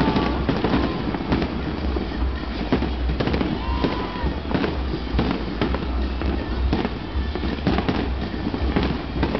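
Fireworks display: a dense, unbroken run of bangs from many shells bursting in quick succession over a steady low rumble.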